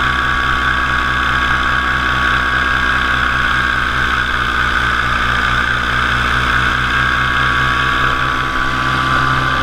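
Top80 two-stroke paramotor engine and propeller running steadily at cruise in flight, a continuous loud drone. It eases slightly near the end.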